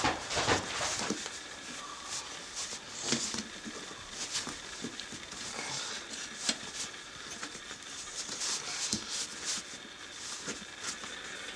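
Hands working a rubber inner tube into a knobbly motorcycle tyre on a spoked wheel: irregular rubbing, scuffing and small knocks of rubber against the rim and spokes.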